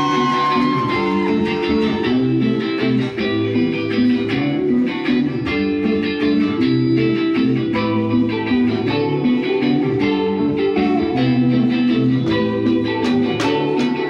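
Live rock band playing: an electric bass line and guitar over a drum kit, with sharp, regular drum strokes coming in near the end.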